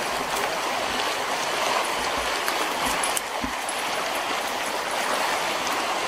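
Fast-flowing river running high over rocks: a steady wash of moving water.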